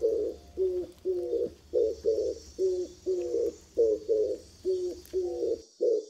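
A low two-part animal call, stepping down in pitch, repeated rapidly about two and a half times a second, over a faint steady hiss that cuts off near the end.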